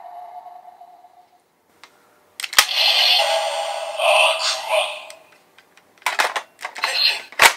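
Electronic effects from an Ark Driver One transformation-belt toy: a sharp click as it is worked, then a few seconds of dense processed electronic sound, and a string of clicks and short bursts near the end. Before that, the tail of the previous belt's sound rings and fades into about a second of silence.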